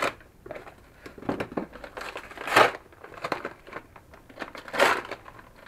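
Brown kraft-paper postal mailer being cut open and its paper wrapping torn and crinkled, in a few short rustling bursts. The loudest comes about two and a half seconds in and another just before the end.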